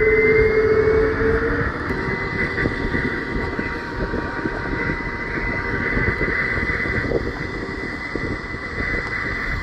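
Jet engines of an easyJet Airbus airliner running on the ground: a steady rushing noise with a high whine, and a lower hum that fades out in the first two seconds.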